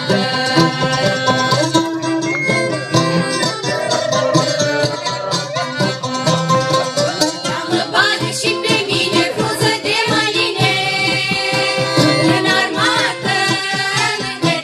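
Moldovan folk song performed by a mixed choir of women's and men's voices with accordion accompaniment.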